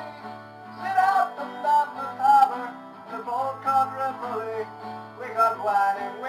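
Acoustic guitar strummed in chords.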